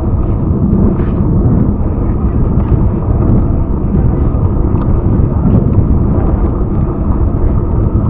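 Wind buffeting the microphone during a bicycle ride, a steady low rumble with no let-up.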